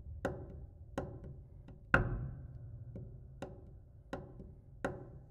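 Sharp percussive strikes on a piano, about one every 0.7 seconds, each ringing briefly through the instrument over a low sustained resonance; the loudest comes about two seconds in.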